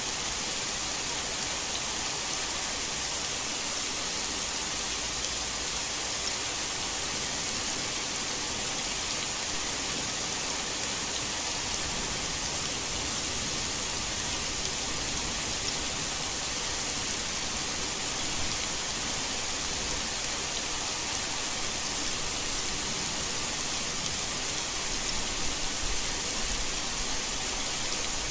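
Heavy rain falling in a steady, even hiss, with a few low bumps near the end.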